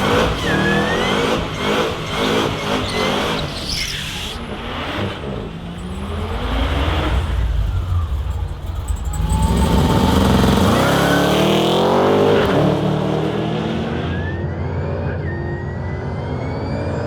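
Supercharged 6.2-litre LS3 V8 running hard under acceleration, its note climbing and dropping back several times, loudest about ten to twelve seconds in, with a thin rising whine above the engine note.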